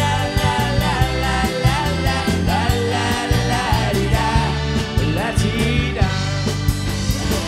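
Live band playing a rock-pop cover: singing over electric guitar and a drum kit, with a steady drum beat.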